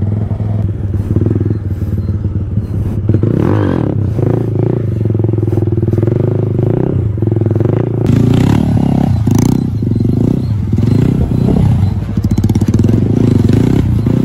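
TVS Apache 160 motorcycle's single-cylinder engine running under a rider, its revs rising and falling a few times.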